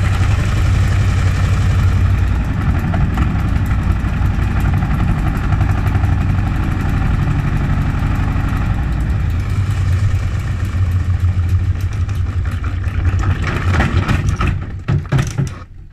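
Gorenje washing machine spinning an unbalanced load in its test mode: a loud, steady low hum with rapid rattling and knocking from the drum. In the last couple of seconds it slows and quietens into separate knocks.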